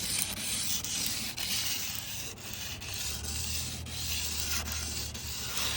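Aluminium-oxide plumber's emery cloth rubbed in quick repeated strokes along the stainless-steel edge of a Cybertruck body panel, a steady gritty rasping. The rasp is rougher where the factory edge is rough and evens out as the edge smooths.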